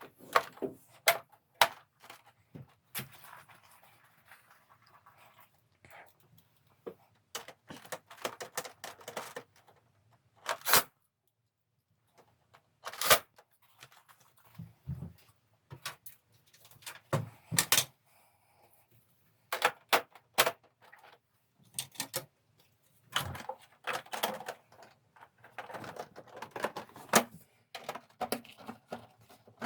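Parts of a Samsung air conditioner being handled during disassembly and reassembly: irregular clicks, knocks and scraping.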